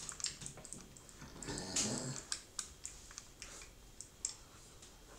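Faint, irregular clicking like typing on a computer keyboard, about two to four clicks a second with gaps. A short low vocal sound from a man comes about one and a half seconds in.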